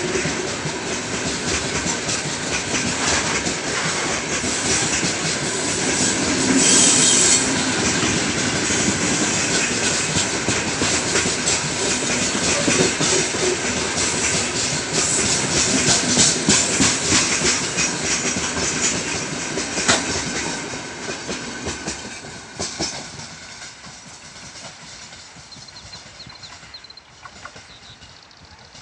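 Heavy freight train of open gondola wagons rolling past close by as it picks up speed: a steady rumble with fast clatter of wheels over the rail joints, and a brief high squeal about seven seconds in. The noise falls away about three quarters of the way through as the train moves off.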